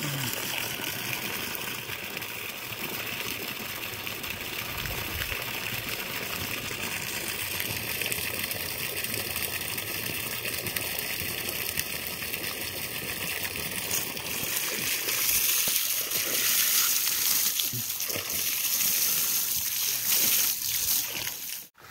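High-pressure water jet from a steel pipe nozzle fed by a lawn irrigation pump, hissing steadily and splashing on dock decking. About two-thirds of the way in, the splashing grows louder as a hand is pushed into the stream.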